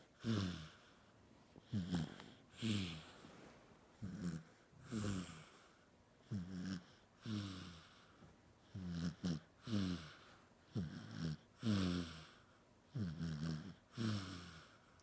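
Snoring: short rasping snores that fall in pitch, about one a second and often in pairs, with quiet gaps between.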